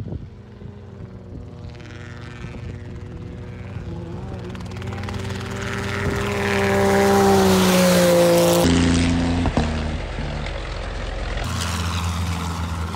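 A side-by-side race buggy's engine running hard on a dirt track, with a small helicopter flying low alongside. The sound grows louder as they approach, and the engine note drops in pitch as they pass about eight seconds in. Just after, the sound changes abruptly for a few seconds.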